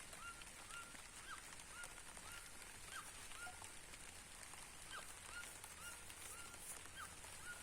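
A bird calling over and over in short, nasal, honk-like notes, about two a second, some level and some dropping in pitch, over a faint steady hiss of rain.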